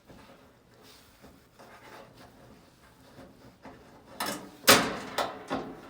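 Mostly quiet room, then, about four seconds in, a quick run of knocks, clicks and scrapes, the loudest just before the five-second mark: hand work on the dryer's rear panel and screws.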